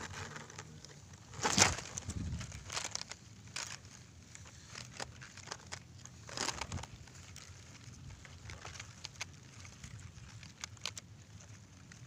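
Grass and sedge stems rustling and crackling against the camera microphone, with scattered small clicks and louder rustling scrapes about a second and a half in and again about six and a half seconds in.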